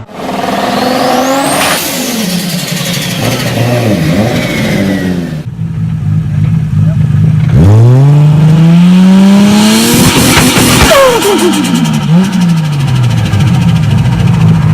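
Turbocharged car engines revving in two short clips. In each, the revs climb and a high turbo whistle rises with them. When the throttle lifts, the revs fall off, and in the second clip this comes with a rapid turbo flutter.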